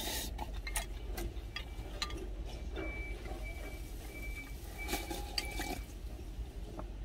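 Slurping and sipping of ramen broth drunk straight from a tilted glass food container, with short clicks of chopsticks against the glass, over a steady low hum.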